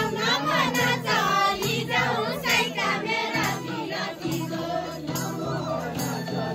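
A group of women and girls singing a Nepali deuda folk song together, unaccompanied, with scattered hand claps. The singing is full in the first half and thins out from about four seconds in.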